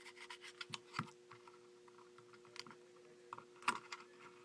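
Small hard plastic clicks and taps from a Kydex sheath and its mollie lock clip being handled: a quick patter of clicks, a louder click about a second in, and another near the end, over a faint steady hum.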